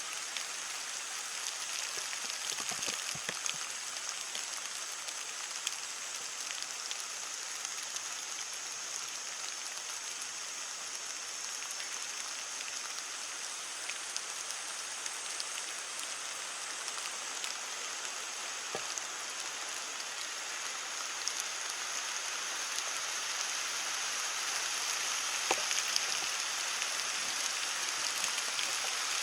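Heavy rain falling steadily on leaves: a dense hiss of drops with scattered sharper patters as larger drops hit, growing a little louder near the end.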